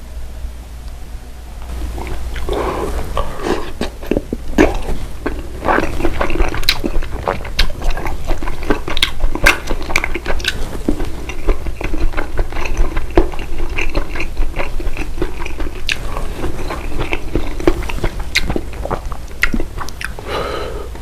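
A person chewing food close to the microphone, with many wet mouth clicks and smacks, over a steady low hum.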